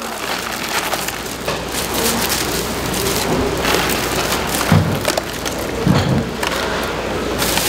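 Crisp fried sticks poured out of a plastic bag into a paper cone: a dense, crackling rustle of plastic and paper, with many sharp little clicks as the sticks tumble in. A couple of dull knocks come in the second half.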